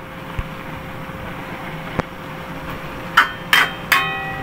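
Three sharp metallic clinks about three seconds in, each ringing briefly: a metal utensil striking the stainless-steel wok while seasoning the kangkong and pork. A steady hiss and faint hum run underneath, with a couple of small clicks earlier.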